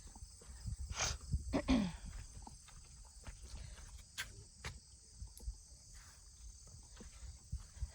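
Crickets chirping steadily in a continuous high chorus, with irregular footsteps and soft knocks on the trail. About a second and a half in, a brief louder falling squeal cuts through.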